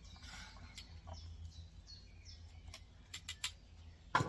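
Small birds chirping, with light clicks of a metal fork against a cast-iron Dutch oven as a roast is turned, and a louder clink near the end.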